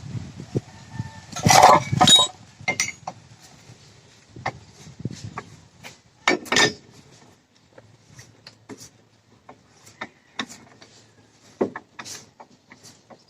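Irregular clinks and knocks, loudest in a cluster about one and a half seconds in and again around six and a half seconds, with fainter scattered ticks between.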